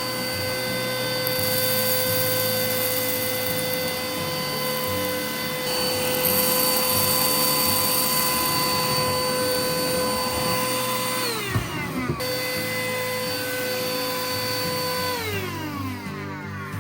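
Vacuum cleaner motor running with a steady high whine and rushing air. It is switched off about eleven seconds in and winds down with falling pitch, starts up again at once, and is switched off and winds down again near the end.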